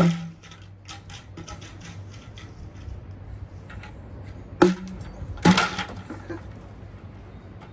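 Small buckets taking hard hits: a loud impact right at the start, then two more about five seconds in, under a second apart, with lighter knocks and clatter between.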